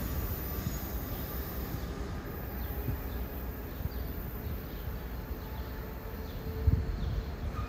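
Outdoor background of a low steady rumble, with faint high bird chirps now and then and a soft bump near the end.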